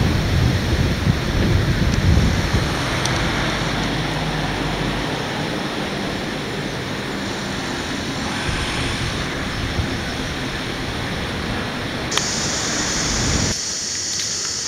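Steady rushing noise of floodwater, with wind buffeting the microphone; the sound changes abruptly twice near the end.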